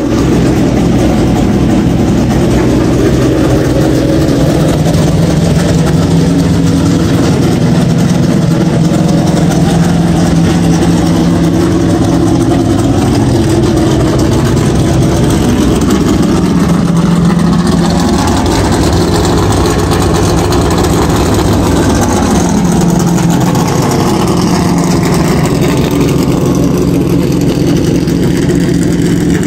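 NASCAR stock car's V8 engine running loud and steady at idle, its pitch rising and falling slightly a few times in the middle.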